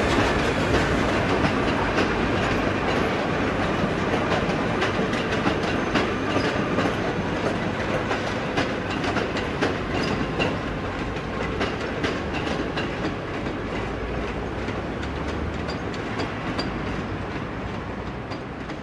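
Railway wheels rolling over rail joints and pointwork: a steady rumble with many irregular sharp clicks, slowly getting quieter.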